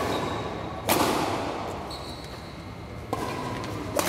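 Badminton rally: a shuttlecock struck by rackets three times, sharp cracks echoing in a large hall, the first about a second in the loudest, the others just after three seconds and near the end. A brief high squeak sounds in between.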